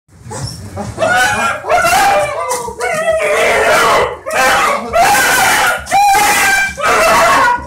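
A dog screaming and whining in a string of high, wavering cries, excited greeting of its owner after a long absence.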